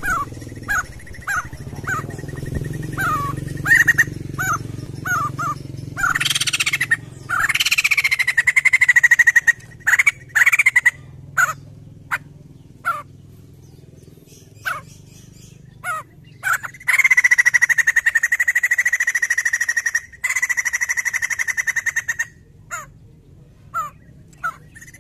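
White-crested laughingthrush singing in a string of short, quick falling notes, with louder call phrases around six to ten seconds in and a long, rapid pulsing trill from about seventeen to twenty seconds.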